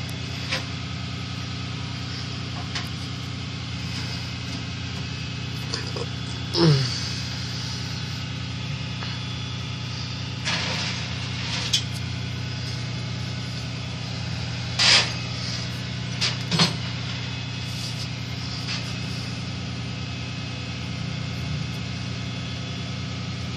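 Flatbed tow truck's engine idling steadily, with a few short knocks and clanks, one about a third of the way in and two more past the halfway point.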